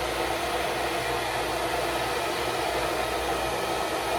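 Hair dryer blowing steadily, drying the glue under a lace front wig to set it.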